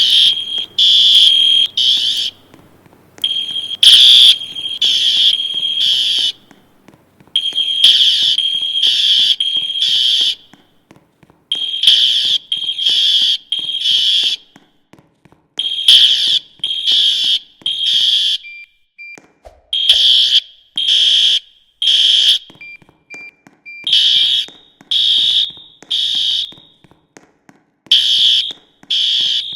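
Building fire alarm sounding in the temporal-three evacuation pattern: three short, loud, high-pitched blasts, then a pause, repeating about every four seconds.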